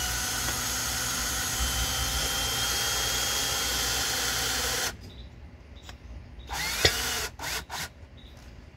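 DeWalt cordless drill/driver with a Phillips bit driving a screw through a plastic electrical box into the wall: the motor runs steadily for about five seconds, stops abruptly, then gives a few short bursts and clicks.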